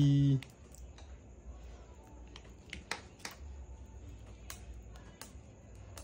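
A man's drawn-out "ay" trails off in the first half-second. After it come faint, scattered clicks and ticks of hands handling a fishing rod and reel.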